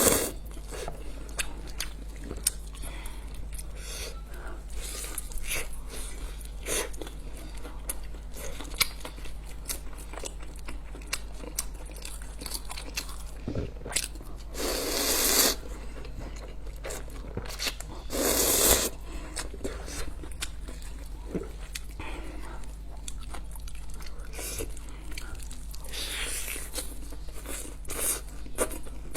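Close-up eating sounds: crunchy bites and chewing of a large chicken leg and instant noodles, with many small wet clicks. Two louder bursts of about a second each come about halfway through.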